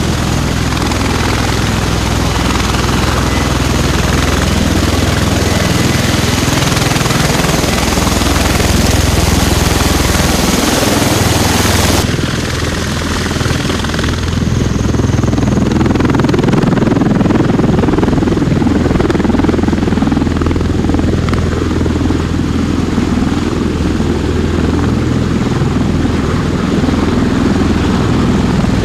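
Bell Boeing V-22 Osprey tiltrotor running loud with its two proprotors turning, on the ground and lifting off: a steady deep roar with a hiss on top. About twelve seconds in, the hiss drops away suddenly and the low rotor noise grows.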